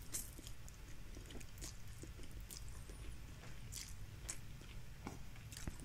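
Person chewing a mouthful of instant fried noodles close to the microphone: faint, scattered wet mouth clicks and smacks.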